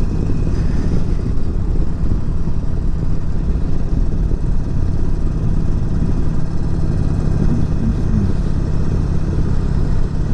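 Harley-Davidson Forty-Eight's air-cooled 1200 cc V-twin running at a steady highway cruise, mixed with rushing wind.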